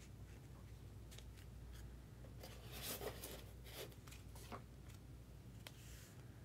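Faint handling of trading cards: scattered light clicks and rustles of cards and their plastic holders being picked up and laid out, over a low steady hum.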